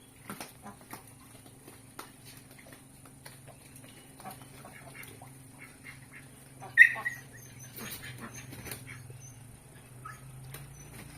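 A domestic animal's call: one loud, short, high-pitched cry about seven seconds in, among scattered small clicks and taps over a low steady hum.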